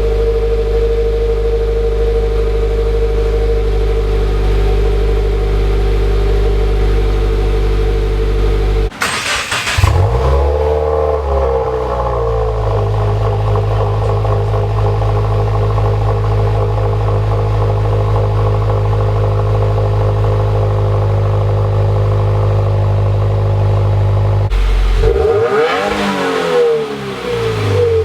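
2018 Subaru WRX turbocharged flat-four engine idling steadily through its exhaust, revved up and allowed to fall back to idle about nine seconds in, and revved once more near the end.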